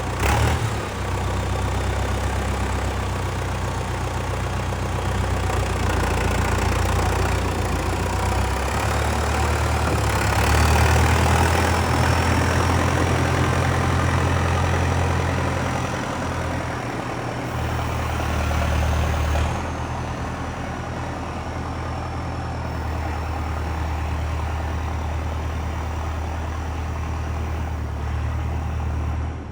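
Valtra 815 backhoe loader's diesel engine running steadily. It gets louder about ten seconds in and settles back down just before twenty seconds, with a faint high whine over it in the second half.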